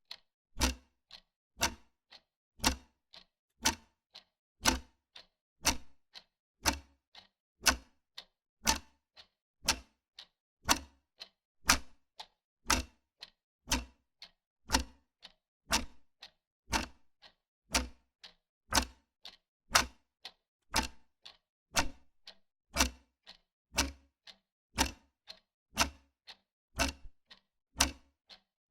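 Wall clock ticking steadily: about two sharp ticks a second, alternating louder and softer, in a regular tick-tock.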